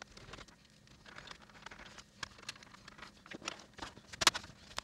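Scattered small clicks, taps and scrapes of a PowerBook G3 laptop's plastic case and screen bezel being handled, with one louder knock about four seconds in.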